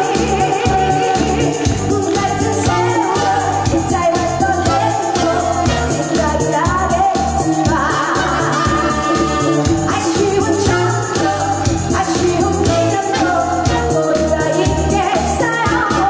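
Live trot song: a woman singing into a microphone with a band of trumpet, flute and saxophones over a steady bass-and-drum beat.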